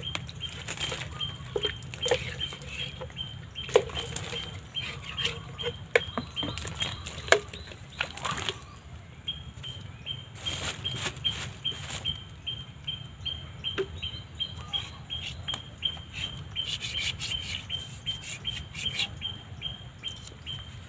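Short, sharp clicks and rustles from thin sticks being handled and coated with bird lime, over a high chirp repeating two or three times a second that pauses briefly about eight seconds in.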